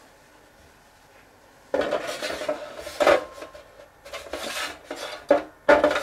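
Sheet-metal outer cover of a QNAP TS-451+ NAS being slid onto its metal chassis: metal scraping and clattering that begins about two seconds in, with a sharper clank about a second later.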